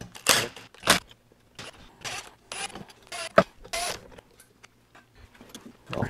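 Tools and metal parts being handled on a workbench: a string of short knocks, clicks and rustles, the sharpest about three and a half seconds in.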